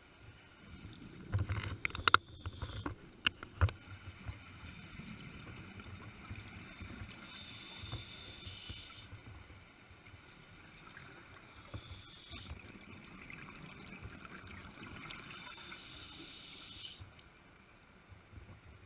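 Scuba regulator breathing, heard underwater through the camera housing: two long hisses about eight seconds apart, with a burst of clicks and knocks in the first few seconds.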